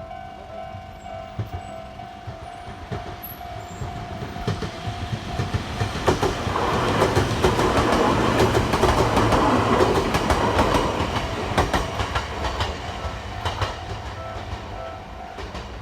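A Japanese level-crossing warning bell rings steadily. From about six seconds in, an electric train passes over the crossing for several seconds, its wheels clacking over the rail joints. Near the end the bell is heard again and then stops.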